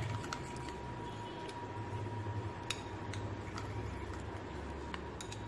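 Metal spoon stirring thick ketchup-based sauce in a small ceramic bowl: scattered light clicks and taps of the spoon against the bowl, over a low steady hum.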